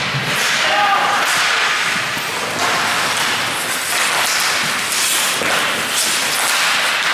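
Ice hockey play: skate blades scraping and carving the ice, with sticks clacking and spectators calling out. Several sharp skate scrapes come in the second half.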